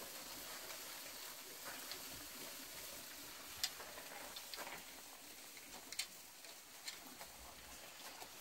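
Faint sizzling of meat grilling over charcoal, a steady hiss with a few sharp crackles scattered through it, the loudest near the middle.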